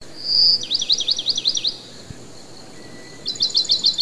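A songbird singing: a short high whistle, then a fast run of about six sweeping notes, and after a pause a second quick run of sharp repeated notes starting about three seconds in.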